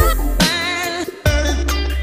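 Background music with a deep sustained bass, regular drum hits and a wavering melody line.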